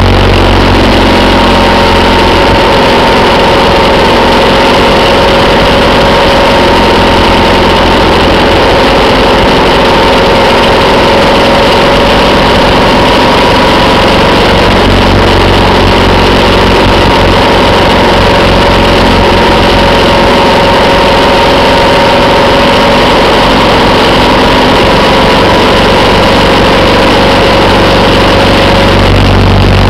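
Steady engine drone at cruising speed, with two held tones, buried in loud, constant wind rush and road noise on the microphone of a moving vehicle.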